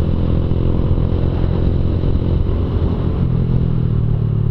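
Honda CG Fan 150's single-cylinder four-stroke engine running through a Fortuna Mini Trioval F1 aftermarket exhaust while being ridden, a steady exhaust note.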